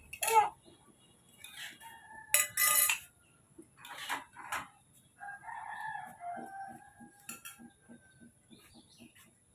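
Plates and cutlery clinking and clattering, loudest about two and a half seconds in, then a rooster crowing about five seconds in with one long call that falls in pitch.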